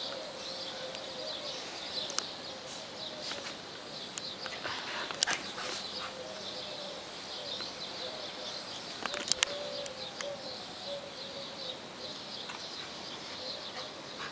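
Birds chirping steadily in the background, with short cooing calls, broken by a few sharp clicks about five seconds in and again just after nine seconds.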